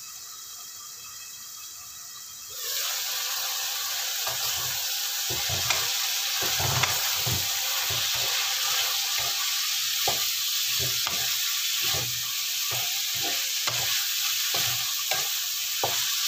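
Stir-fry in a wok: sizzling quietly under the lid at first, then loud sizzling from about two and a half seconds in once the lid is off. A wooden spatula stirs the bitter gourd, onion, anchovies and dried shrimp, knocking and scraping against the pan roughly once a second.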